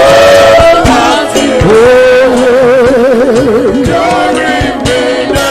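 Gospel praise and worship music, with a voice singing long held notes with a strong vibrato over the band's accompaniment.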